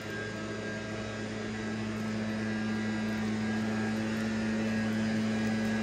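Leaf blower engine running steadily, a constant droning hum that grows slightly louder.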